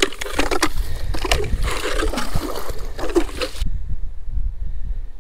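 Ice scoop skimming slush and ice chips out of a freshly drilled fishing hole, with scraping and splashing for about three and a half seconds that stops abruptly. After that only a low wind rumble on the microphone remains.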